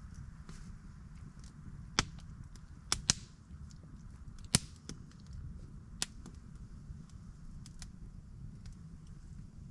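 Wood fire crackling: many faint ticks with five sharp pops over about four seconds, the loudest a little past the middle, over a low steady rumble.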